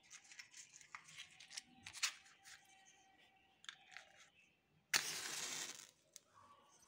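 Small clicks and rustles of a matchbox being handled, then about five seconds in a wooden match is struck and flares, a sudden rasp of noise lasting about a second.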